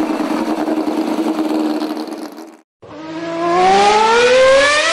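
A car engine running steadily, cut off abruptly about two and a half seconds in. After a moment's break an engine accelerates hard, its pitch rising steadily.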